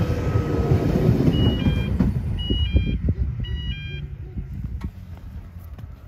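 A Sydney Trains double-deck electric train with camshaft-controlled traction motors rumbles away with its wheels clattering over the rail joints. The sound fades steadily as the train recedes. A few short high-pitched chirps sound in the middle.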